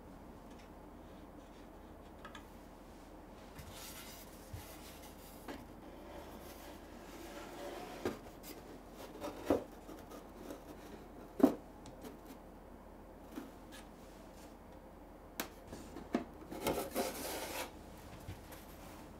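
Thin fibreboard panel being slid and pressed into a wooden box by hand: board scraping and rubbing against the wooden sides, with scattered light knocks of board on wood, the sharpest a little past halfway, and a longer stretch of scraping near the end.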